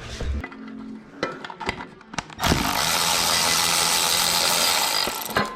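A few scattered clicks and knocks of tools, then about two and a half seconds in a power tool runs steadily for about three seconds and stops suddenly.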